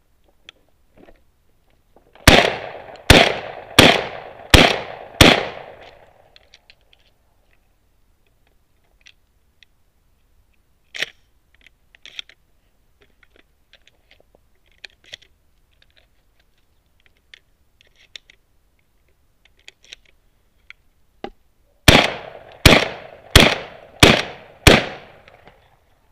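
Stoeger M2000 12-gauge semi-automatic shotgun firing 1 1/8 oz game loads in two quick strings of five shots each, about 0.7 s apart, the action cycling between shots. Quieter clicks and rattles fall between the two strings.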